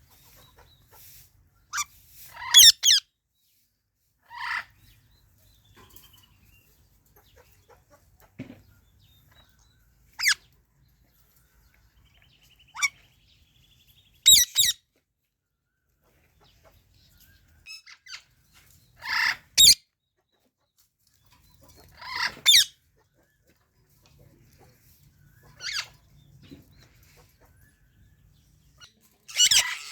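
Indian ringneck and alexandrine parakeets giving short, shrill calls. There are about eight calls, some single and some in quick pairs, with pauses of a few seconds between them.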